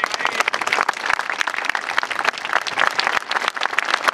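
Crowd applauding: many people clapping in a dense, steady patter.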